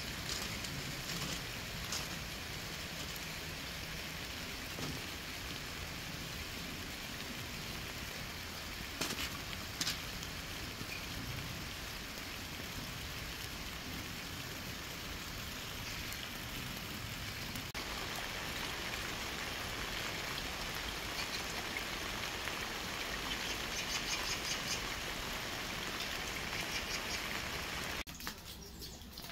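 Steady rain falling, an even patter of drops, with a couple of brief knocks about nine and ten seconds in.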